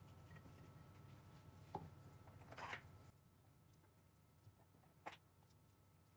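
Near silence, with a few faint soft taps and brush strokes from a paintbrush spreading white glue on a wooden disc, the clearest one short rustle a little before three seconds in.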